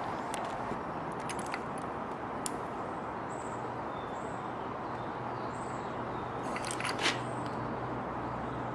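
Scattered light metallic clicks of hand tools on the compressor's bolts as they are tightened to torque, with a louder cluster of clicks about seven seconds in, over a steady background hiss and a faint hum.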